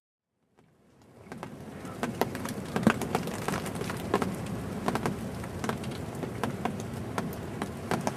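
Wind-driven snow pattering: a dense run of irregular ticks over a steady rushing, fading in about a second in.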